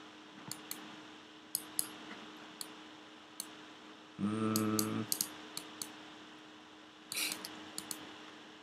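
Scattered sharp clicks of a computer mouse and keyboard, a dozen or so spread irregularly, over a faint steady electrical hum. About four seconds in, a short steady pitched hum lasts under a second.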